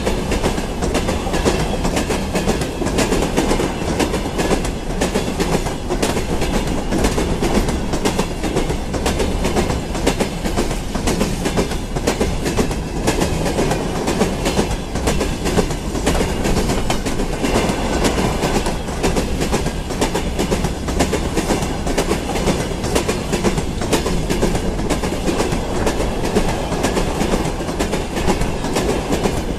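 Freight train of four-axle open gondola wagons rolling past: a steady rumble of steel wheels on rail with a fast clickety-clack as the bogies cross the rail joints.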